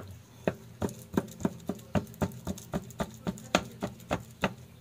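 Kitchen knife chopping soft ripe saba bananas, a steady run of knocks about three or four a second.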